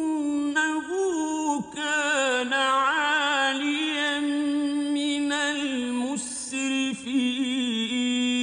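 A man's solo voice chanting Quranic Arabic recitation in long, ornamented melodic phrases, its held notes wavering, with brief breaths between phrases.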